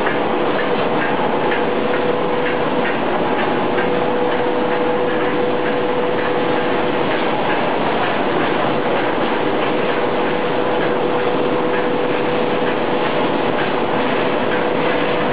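PVC wire-coating extrusion line running: a steady machine noise with a constant hum and a light, regular ticking.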